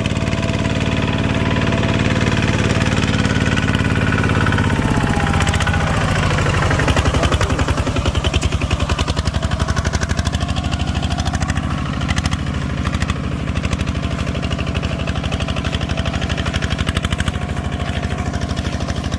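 Engine of a farm machine running steadily close by, its note shifting about five seconds in as the engine speed changes.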